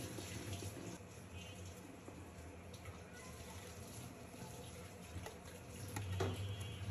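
Faint watery sound of a thick liquid being poured in a stream into a bowl of ice-cream custard base, over a low steady hum, with a short louder sound about six seconds in.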